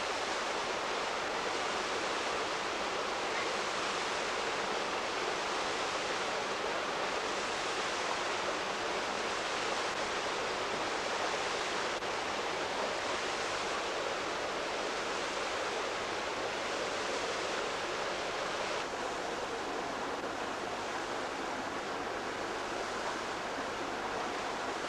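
Rocky stream rushing over stones, a steady rush of water. It turns slightly duller about nineteen seconds in.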